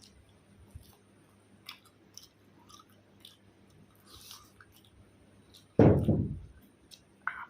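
A person chewing food with wet mouth smacks and small crunches. About six seconds in there is a loud, low sound lasting under a second, then a short sharper click near the end.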